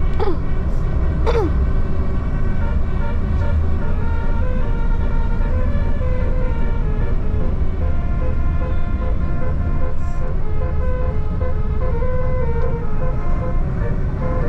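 Large vehicle engine rumbling steadily, with two short falling squeals near the start. From about two seconds in, a faint tune of changing notes plays over it.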